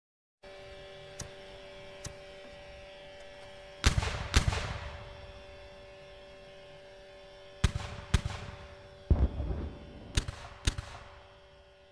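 Battle sound effects: sharp gunshots and heavier artillery booms over a low, steady droning hum. The shots come in pairs, about four seconds in, near eight seconds and again near the end, with a low rumbling boom between the last two pairs.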